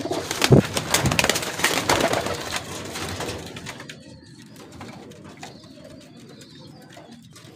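Domestic pigeons cooing, with a flurry of wing flaps and clattering on the perch in the first few seconds, then quieter.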